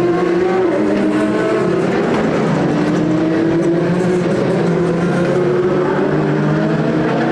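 Several endurance race cars' engines running at once at high revs. Their overlapping pitches slide slowly up and down, and one climbs near the end.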